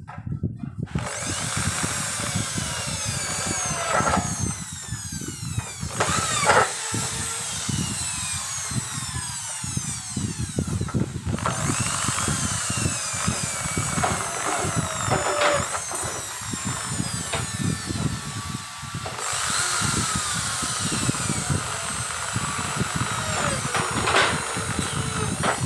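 Hand-held corded electric drill boring into a hollow aluminium frame profile, running almost without a break, with whining tones that slide down in pitch again and again.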